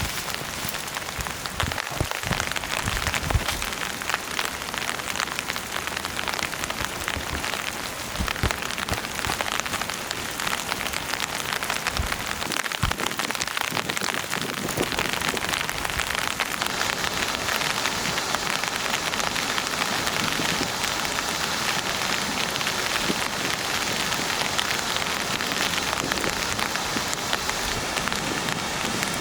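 Steady rain falling: a dense, even patter of drops, with a few heavier drips in the first seconds.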